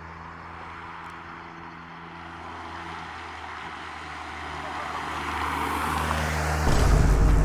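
Edited-in music opening: a steady low sustained drone under a rising noise sweep that brightens and swells for about six seconds, then a heavy bass hit near the end.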